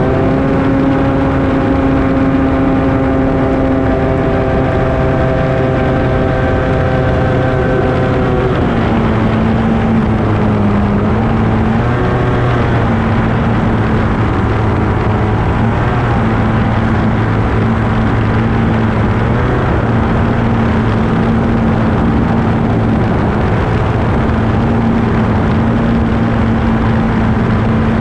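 Two-stroke stock outboard racing engine on a BSH hydroplane running hard at race speed, heard on board. Its pitch drops slightly about eight seconds in and wavers now and then after that.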